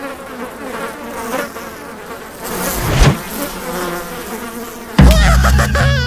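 Cartoon sound effect of a swarm of flies buzzing, with a sharp thud about three seconds in. About five seconds in, a sudden loud cartoon cry from the lizard cuts in.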